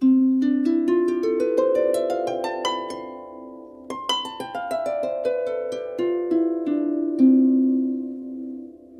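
Short outro music of harp notes: a plucked run climbing step by step for about three seconds, then a second run from about four seconds in stepping back down, the notes ringing on and fading near the end.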